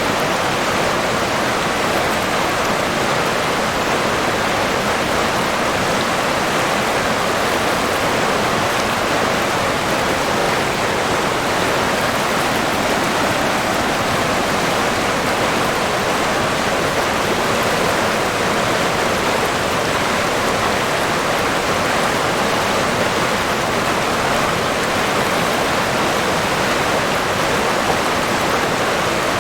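River water flowing and rushing steadily, an even unbroken rush of water.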